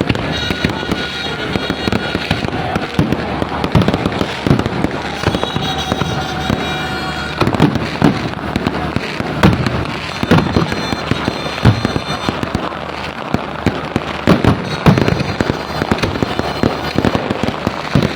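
Fireworks going off in quick succession: many sharp bangs over a constant crackle.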